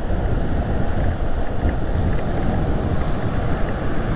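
Wind buffeting the microphone of a moving motorcycle, a steady low rumble with the bike's engine and road noise underneath.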